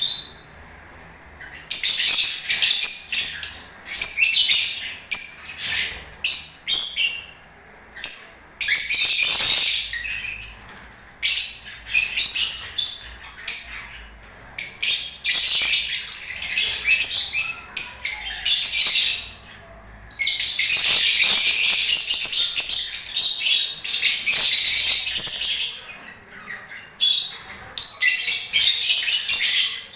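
Lovebirds chirping in fast, high-pitched bouts broken by short pauses, with one longer unbroken stretch about two-thirds of the way through.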